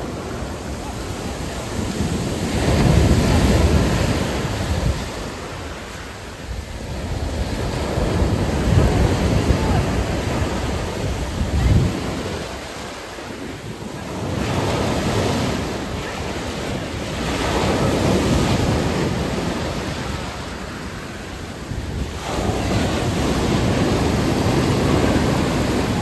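Stormy sea surf breaking and washing up the beach, the roar swelling and easing in surges every few seconds, with wind buffeting the microphone.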